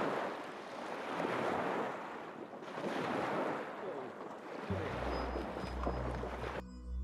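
Small lake waves breaking and washing onto the shore right at the microphone, surging and fading in repeated swells, with a dog splashing through the shallows. Music fades in near the end.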